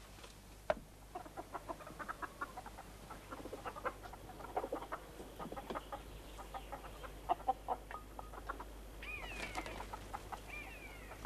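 Domestic hens clucking: a busy run of short clucks, with a few higher gliding calls near the end.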